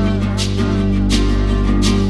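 Background music: a mellow pop song with a steady beat, in an instrumental stretch between sung lines.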